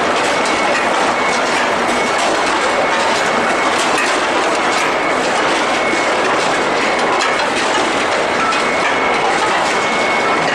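Continuous dense metallic clatter and rumble of a steel-ball hot-rolling production line running, with a faint steady high whine underneath.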